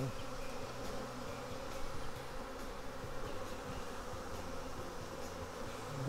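Steady buzzing of a large mass of honey bees crowding an open hive box, many of them fanning.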